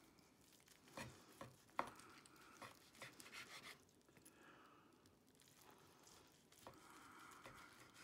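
Faint knife work: a knife slicing through a roasted pork tenderloin on a wooden cutting board, with metal tongs holding the meat, giving a few soft clicks and scrapes, the sharpest just before two seconds in.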